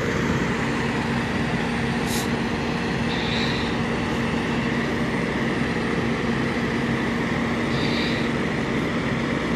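Steady diesel drone from a nearby semi truck: a constant low hum over a rumbling noise bed. Two faint, short high chirps come through it.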